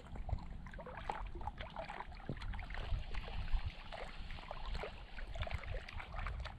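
Small waves lapping and splashing against a rocky lake shore, quiet and irregular, with a low wind rumble on the microphone.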